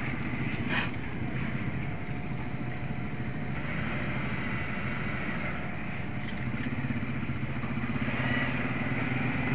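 A steady low engine hum, like a motorcycle engine running, with one brief click a little under a second in.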